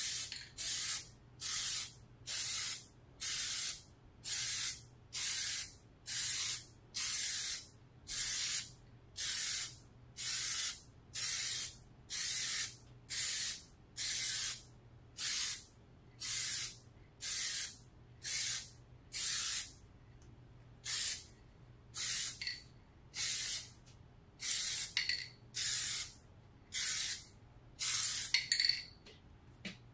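Aerosol can of Plasti Dip spraying a wheel rim in short hissing bursts, a little over one a second, each under a second long.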